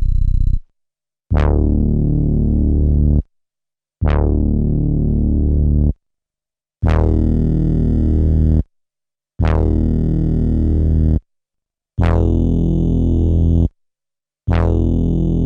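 SP-1200 12-bit sampler playing back a pitched synth-like sample, triggered six times. Each note has a bright start that darkens quickly, holds for about two seconds and then cuts off sharply, with a short silence before the next.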